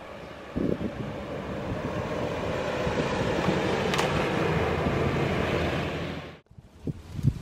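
Steady rushing wind noise on the microphone, starting with a few soft knocks about half a second in, swelling, and cutting off suddenly near the end. There is a sharp click about four seconds in.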